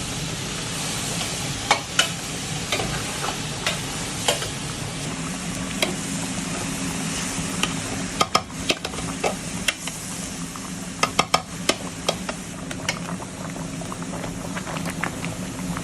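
Food sizzling in a hot pan, a steady hiss, with a metal utensil clicking and scraping against the pan at irregular moments, most often in the second half. A steady low hum runs underneath.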